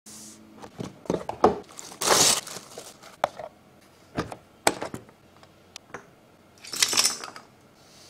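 Unboxing handling sounds from a cardboard keyboard box and a clear plastic dust cover: a string of light knocks and clicks, with two longer rustling scrapes, one about two seconds in and one about seven seconds in.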